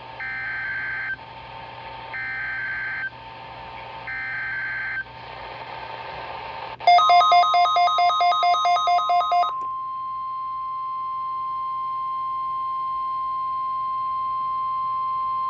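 Emergency Alert System weekly test signals. Three one-second bursts of the SAME digital header, a harsh buzzing warble, come a second apart. Then rapid two-pitch electronic beeping runs for about two and a half seconds over the start of the steady 1050 Hz weather-radio attention tone, which holds alone for several seconds more.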